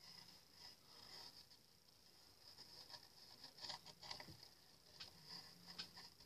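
Near silence with faint scattered small taps and scrapes, a few bunched together a little past the middle, over a faint steady high hiss.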